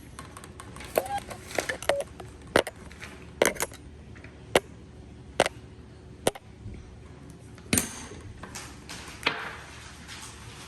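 Slime being squeezed and pressed by hand, giving sharp clicks and pops at irregular intervals of roughly one a second, some with a short wet squelch after.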